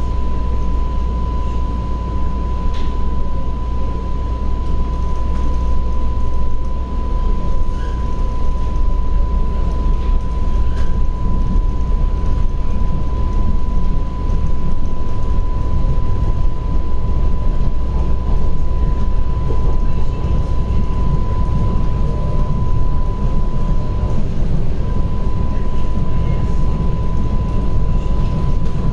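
TTC subway train running, heard on board: a steady low rumble with a constant high whine throughout.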